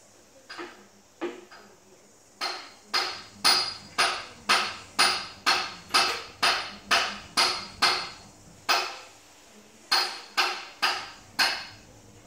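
Hammering: a few light knocks, then a steady run of sharp, ringing blows about two a second, a short pause, and four more blows near the end.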